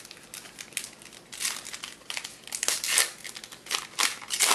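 Plastic trading-card pack wrapper crinkling as it is handled and opened, a quick run of irregular crackles.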